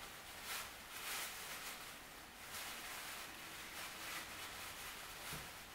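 Faint, hissing noise of a distant freight train's covered hopper cars rolling along the rails, swelling and fading several times.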